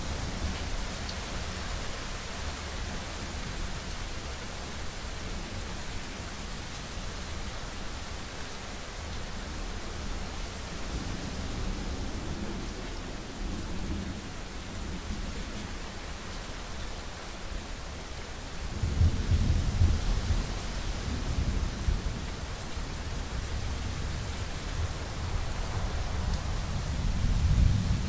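Steady rain with rolling thunder. A faint low rumble passes before the middle, a louder rumble rolls in about two-thirds of the way through, and another swells near the end.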